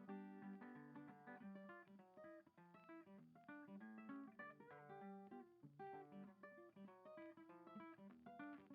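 Quiet background music: an acoustic guitar picking a quick run of notes with some strummed chords.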